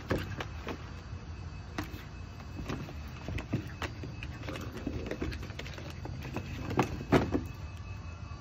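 Patterdale terrier splashing and scrambling in a plastic tub of water: irregular splashes, knocks and scrapes of paws and claws against the plastic, loudest near the end, over a steady low hum.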